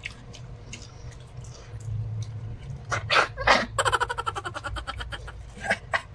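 A woman's muffled laugh behind her hand: a breathy burst about three seconds in, then a pulsing hum lasting about a second and a half.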